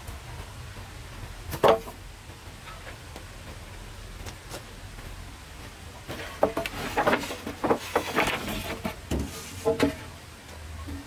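Wood knocking and clattering as it is handled: one sharp knock about two seconds in, then a run of knocks and scraping from about six to ten seconds in.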